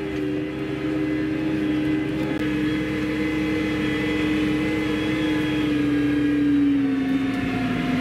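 Case IH Maxxum 140 tractor engine running steadily under load, heard from inside the cab, while the tractor pulls a drag harrow across the field. Its pitch drops slightly near the end.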